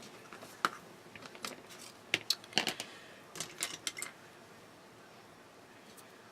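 A scatter of light, sharp clicks and taps from small paper pieces and craft tools being handled on a desk while paper die-cuts are glued down, dying away after about four seconds.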